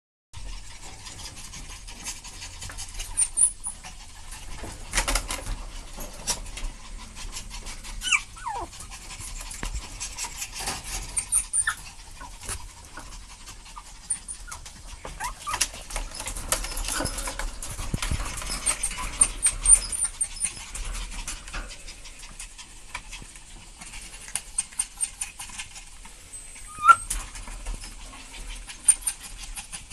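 Chihuahua puppies being handled, giving a few short high squeaks, one sliding down in pitch about eight seconds in, among frequent soft clicks and rustles of hands and fur.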